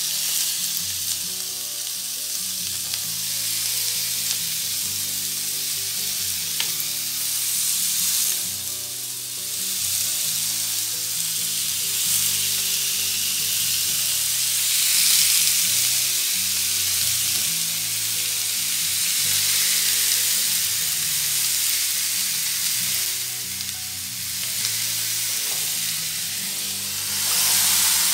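Raw marinated chicken skewers sizzling steadily on the hot plates of a Tefal OptiGrill XL electric contact grill.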